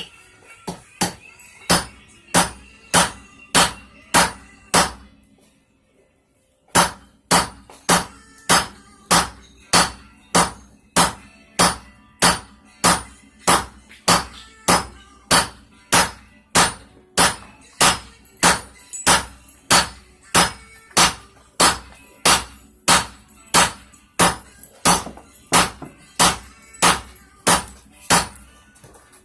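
Hand hammer striking a hot railroad spike on an anvil in steady blows, about one and a half to two a second, with each blow ringing. The blows stop for under two seconds about five seconds in, then carry on at the same pace.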